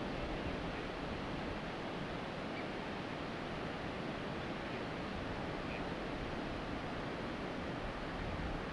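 Steady, even rush of distant surf.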